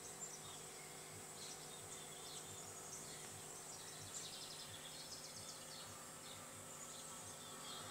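Faint forest ambience from a wildlife documentary's soundtrack through TV speakers: insect buzzing with scattered high chirps, over a steady low electrical hum.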